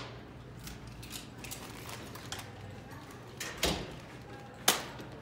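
Scattered short clicks and crinkles, with a louder knock about three and a half seconds in and a sharp clack about a second later.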